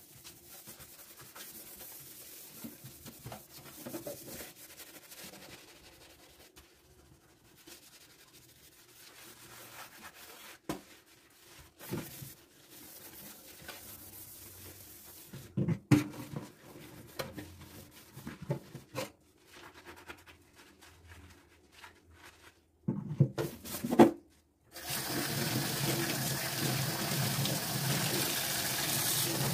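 Quiet household handling with scattered knocks and a few sharper clacks, then near the end a water tap turned on, running steadily into a sink.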